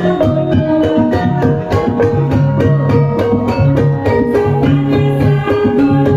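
Javanese Banyumasan gamelan playing a gending: bonang kettle gongs, saron metallophones and kendang drum struck in a quick steady pulse over a deep gong tone, with women singing along.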